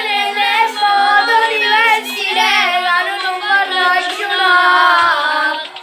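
Children singing a song, with backing music underneath.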